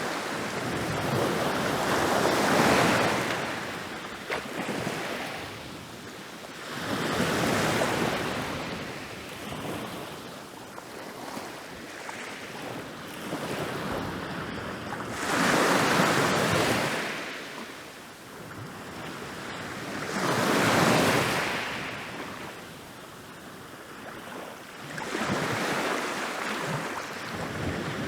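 Ocean waves rolling in and breaking on a beach: surf swells up and washes away again, with five breakers spaced several seconds apart.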